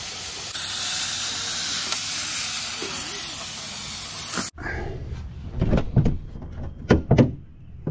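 Steady, loud hiss of steam venting from the overheated engine bay of a 2003 Ford F350 6.0 L diesel after a power steering line leak. The hiss cuts off suddenly about halfway through, followed by a few scattered knocks.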